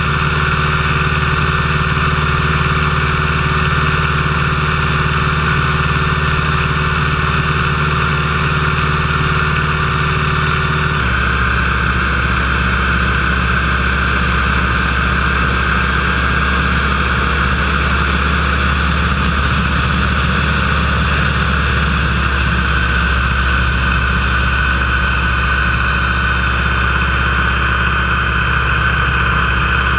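Nanchang CJ-6A's nine-cylinder radial engine and propeller running at high power, heard from inside the cockpit, through the takeoff and climb. The sound is loud and steady, with an abrupt change in tone about a third of the way in.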